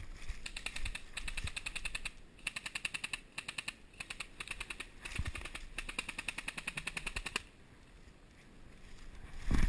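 Airsoft rifles firing on full auto: several rapid bursts of light, evenly spaced clicks that stop about three-quarters of the way through. A thump near the end.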